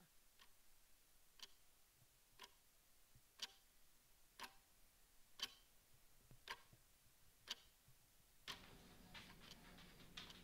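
Clock ticking slowly and faintly, one tick about every second. A faint steady background noise comes in about eight seconds in.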